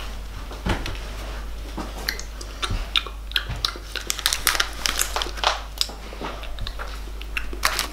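Light clicks, taps and crinkles of cupcake decorations and plastic sweet packets being handled on a kitchen worktop, coming in quick irregular runs.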